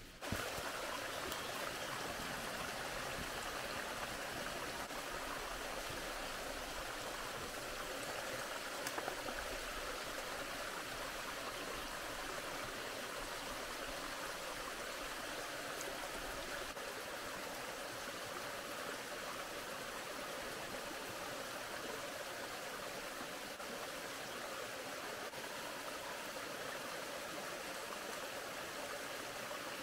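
Small forest stream running steadily over a little rocky cascade, an even rush of water, with a couple of brief soft knocks about nine seconds in.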